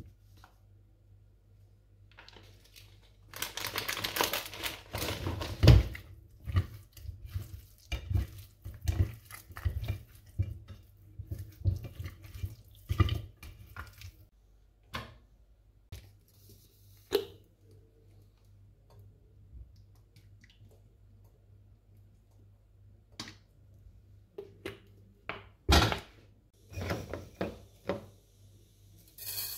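Hands rubbing spice powder into raw sea bream pieces on a tray: rustling and soft wet knocks as the fish pieces are handled, busiest in the first few seconds and then coming as separate knocks. Near the end come a few sharper knocks from a stainless-steel pot being handled.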